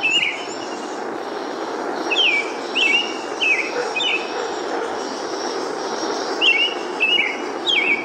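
American robin singing short, falling, whistled phrases: a run of four about two seconds in and three more near the end. A steady background rush runs beneath.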